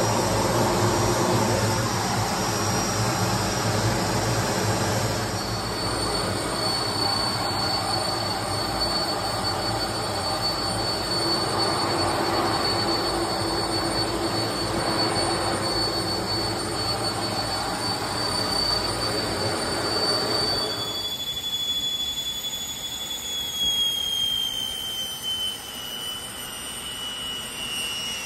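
Cockpit noise of a Fouga CM.170 Magister jet trainer in flight: a steady rush of air and its twin Turboméca Marboré turbojets, with a high steady whine over it. About twenty-one seconds in, the rush drops away sharply and a single turbine whine is left, slowly falling in pitch as the engines are throttled back.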